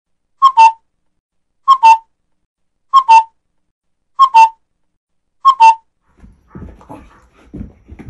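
Cuckoo call sound effect: five two-note 'cuck-oo' calls, the second note a little lower than the first, evenly spaced about a second and a quarter apart. Faint knocks and rustling near the end.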